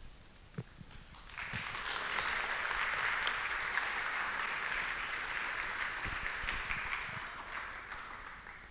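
Audience applauding, starting about a second in and slowly fading out near the end.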